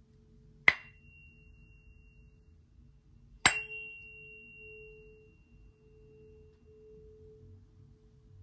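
Meinl 432 Hz tuning fork ringing with a steady pure tone, struck twice about three seconds apart with its striker. Each strike is a sharp tap followed by a high ringing overtone that fades within a few seconds, while the low 432 Hz note sustains.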